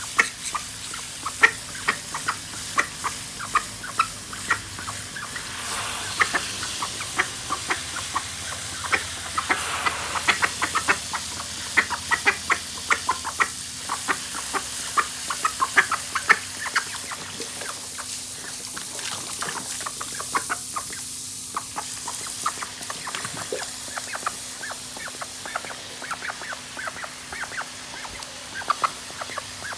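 Call ducks giving rapid, short, soft quacks, several a second, over the steady hiss of water from a garden hose spray nozzle.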